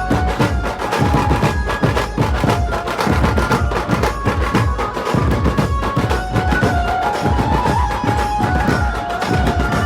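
Loud procession music with fast, dense drumming under a held melody line, played over a large festival sound system.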